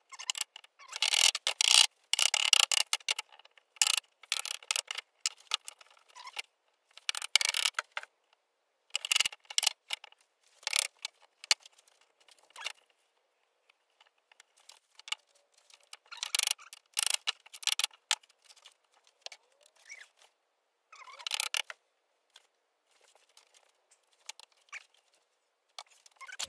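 Steel straightedges scraping, sliding and clinking as they are laid across and lifted off a pine window frame. The sound comes in a string of short bursts with silent gaps between them.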